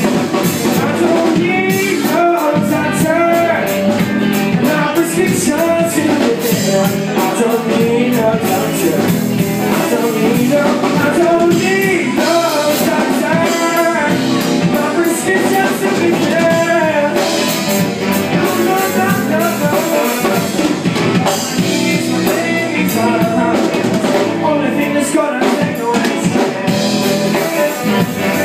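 Live rock band playing: electric guitars, drum kit, keyboard and saxophone, with singing.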